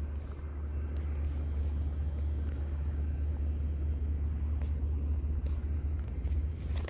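Steady low rumble of wind buffeting the phone's microphone, with a few faint clicks.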